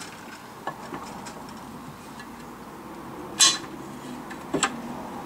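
Metal clinks and knocks as the stiff front cover of a Tremec T56 transmission is pried loose from the case. The sharpest, loudest clink comes about three and a half seconds in, with a second one about a second later.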